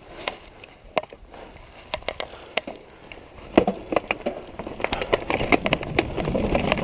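Orbea downhill mountain bike rolling over a rocky, leaf-strewn trail: a stream of scattered clicks, knocks and rattles from the tyres and bike over rocks, getting busier about halfway through.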